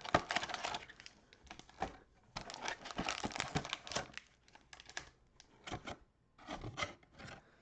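Cellophane-wrapped trading card packs crinkling as they are handled and pulled from the box, in bursts of crackling and scattered clicks.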